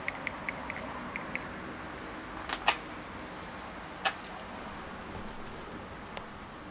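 Small handling noises of a screw and a threadlocker bottle: a run of faint quick ticks in the first second or so, then two sharp clicks about two and a half seconds in and another about four seconds in, over a low steady room hum.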